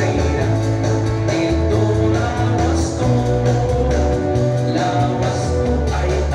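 Loud Waray dance song with singing, played over a DJ's mobile sound system, with a steady beat and a bass line.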